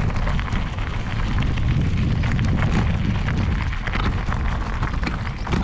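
Wind buffeting an action camera's microphone as a steady rumble, with dense crackling and rustling on top.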